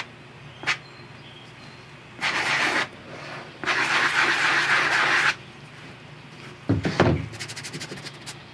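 Fine-grit sanding block rubbed across a leather purse to buff out scratches: a short scraping stroke, then a longer one lasting over a second, with a few light knocks from handling the bag.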